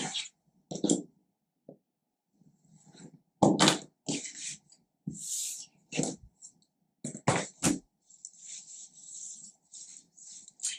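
Irregular handling noises: a clear acrylic quilting ruler slid and set down on a cutting mat, and cotton fabric rustling as the bag is gathered up, with a few sharp knocks among them.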